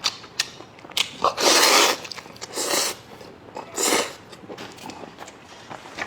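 A person eating noodles close to the microphone: three short noisy bursts of eating sounds, the loudest about a second and a half in, with small clicks of chewing and mouth sounds between.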